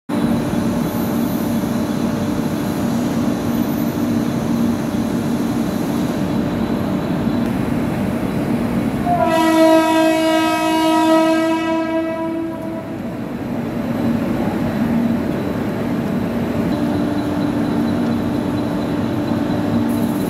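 Suburban electric multiple-unit train horn sounding one long held note, about three seconds long, starting about nine seconds in. Under it runs the steady hum and rumble of electric trains at the platform.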